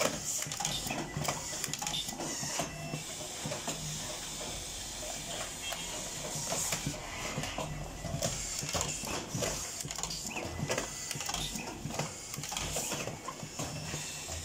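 Automatic screw-driving machine at work: its motors whir in short runs of a second or two, among many small clicks and knocks from parts being handled.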